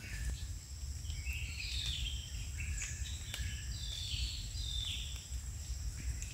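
Forest ambience: a bird gives a run of about six short calls, each dropping in pitch, over a steady high-pitched insect drone, with a low rumble underneath.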